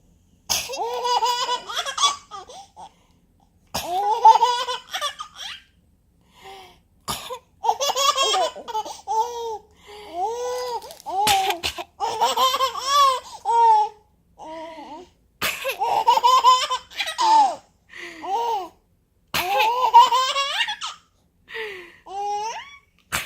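Baby laughing hard in about six fits a few seconds apart, with giggles and belly laughs. Most fits start right after a short sharp sound, the sneeze the baby finds funny.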